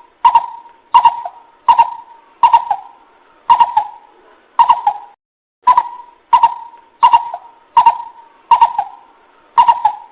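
Coucal (bubut) calling: a long series of short, hollow hooting notes, about one every three-quarters of a second, with a brief pause about five seconds in. It is the call used as a lure to draw other coucals near.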